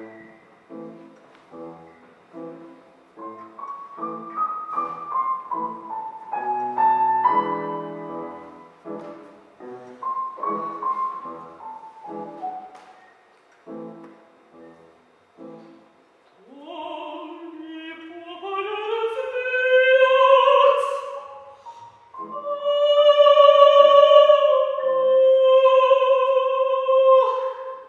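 Operatic music: a piano plays short, detached chords, then about halfway through a classically trained voice comes in, sliding upward into long held high notes that are the loudest part.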